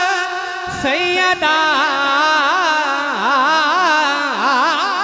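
A man singing a long, drawn-out line of Punjabi devotional verse. He holds a wavering note, breaks off briefly about a second in, then sings on with quick up-and-down ornamental runs toward the end.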